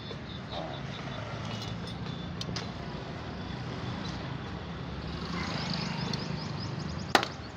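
Steady street traffic noise, then near the end a single sharp pop as a glass soda bottle is opened.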